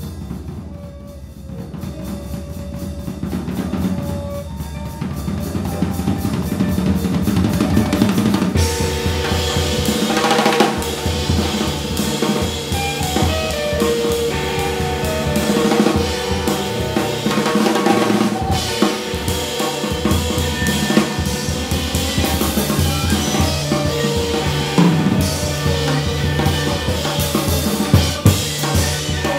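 Live jazz trio of guitar, double bass and drum kit playing, with the drums to the fore. The music swells over the first eight seconds or so, then plays on at full strength.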